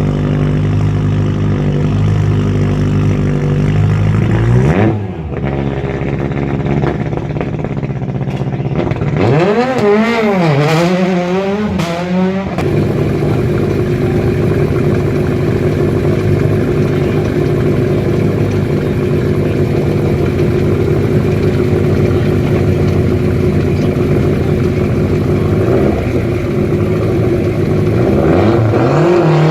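Rally car engines running at steady held revs. About five seconds in the pitch sweeps up and down once. Around ten to twelve seconds in there is a stretch of quick up-and-down revving, then steady revs again.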